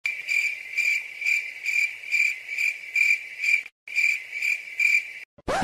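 Stock cricket-chirping sound effect, the comedy 'awkward silence' cue: a steady high trill pulsing a little over twice a second, with a brief break near the middle. It stops shortly before the end, where a short rising whoosh comes in.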